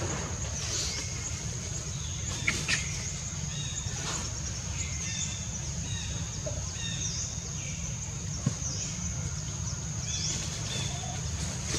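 Outdoor ambience: a steady high-pitched whine that dips in pitch now and then, short bird chirps, and a steady low rumble, with a few sharp clicks.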